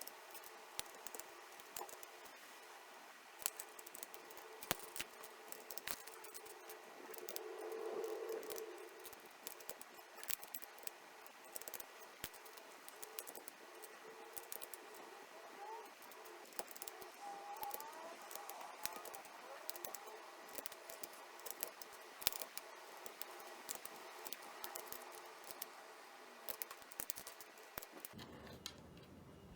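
Scattered small plastic clicks and light rattles from a Keychron K1 keyboard and its parts being handled, with a brief louder muffled rubbing about eight seconds in.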